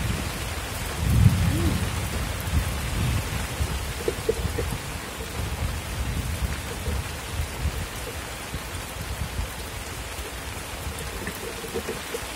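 Steady rain falling on reservoir water, an even hiss, with low rumbling underneath that is loudest about a second in.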